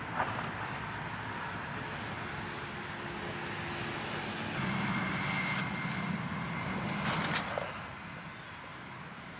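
Road traffic: a vehicle passes, its low rumble swelling about halfway through and fading near the end, over a steady hiss of outdoor noise. A single sharp click sounds about seven seconds in.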